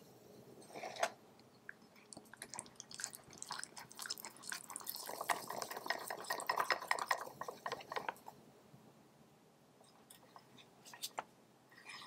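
A small whisk stirring thick chocolate cake batter in a ceramic mug: a single knock about a second in, then a fast run of wet clicks and scrapes against the mug, busiest in the middle and thinning to a few taps near the end.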